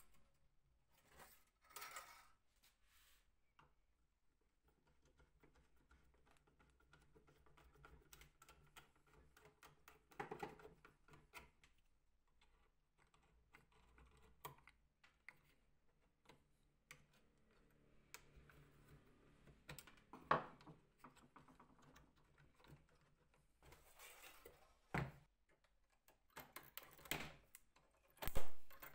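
Scattered light clicks and taps of small hard objects being handled, with a faint low hum in places and a few louder knocks, the loudest near the end.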